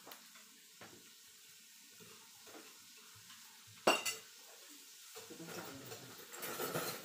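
Metal utensils clinking and scraping against a tabletop grill plate and dishes during a meal: scattered light clicks, one sharp clink with a second right after it about four seconds in that is the loudest, and a busier stretch of clatter and scraping near the end.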